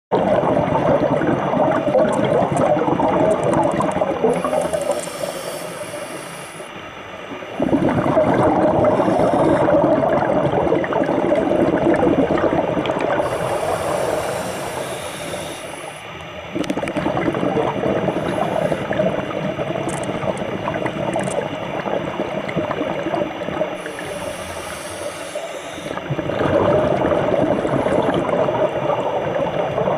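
Scuba regulator breathing heard underwater: long spells of exhaled bubbles alternate with a short, high hiss of inhalation through the demand valve, three times at roughly ten-second intervals.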